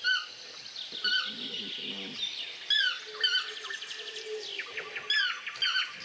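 Yellow-throated toucan calling: short, sharp calls repeated every second or two, often in pairs, over rapid trills from other forest birds.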